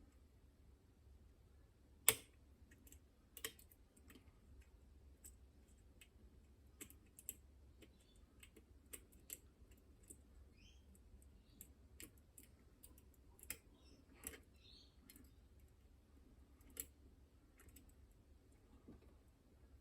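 Faint, irregular clicks and ticks of picking tools working the levers inside a Chubb Detector lever lock, with one sharper click about two seconds in.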